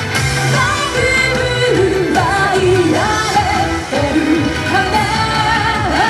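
Yosakoi dance-team music: a sung melody with wavering, held notes over a pop-style band backing.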